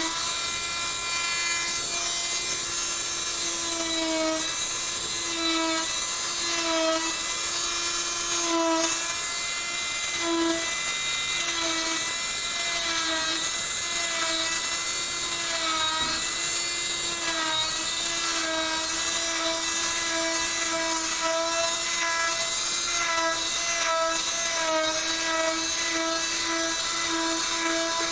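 Oscillating plaster-cast saw running with a steady whine while cutting through a plaster leg cast. Its pitch dips briefly every second or two as the blade is pressed into the plaster and lifted again, stepping along the cut line to split the cast in two.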